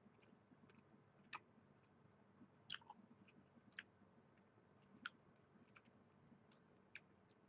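Faint chewing of a dense protein bar, with a few soft sharp mouth clicks scattered through.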